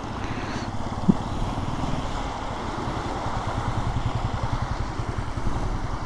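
Water rushing steadily through an open sluice gate, a continuous turbulent noise.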